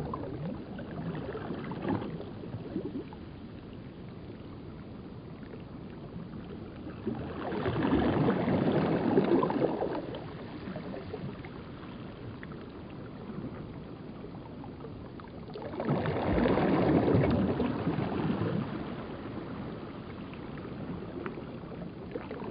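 Ocean surf: two waves wash in and die away several seconds apart, and a third begins building near the end.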